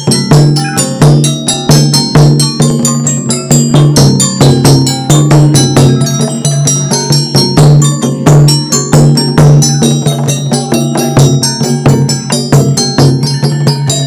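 Traditional Southeast Asian percussion ensemble playing: xylophones and a gong circle struck in fast, continuous runs of ringing mallet notes over a barrel drum.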